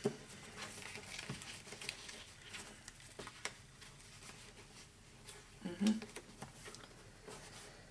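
Faint handling of a folded cardstock card on a scoring board: scattered light taps, rustles and scrapes of paper under fingertips.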